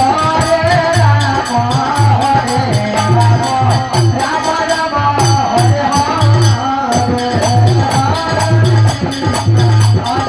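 Devotional kirtan music: a wavering melody line over a regular low drum beat and a steady, rapid rattle of jingling percussion.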